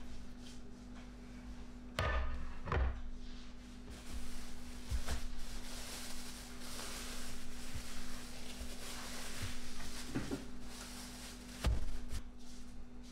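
Kitchen handling sounds during dough making: a flour-dusted plate set down on the table with a couple of knocks about two seconds in, then a plastic bag crinkling and rustling as a ball of dough is unwrapped on a wooden board, with two more thumps near the end. A steady low hum runs underneath.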